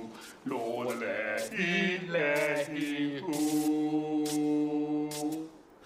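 A man's voice chanting in a sing-song way, ending on one long held note.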